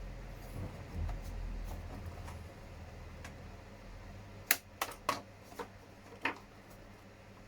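Injection-moulded hard plastic parts of a WPL C44KM body shell being handled and pressed together, with about five sharp clicks in quick succession a little past halfway.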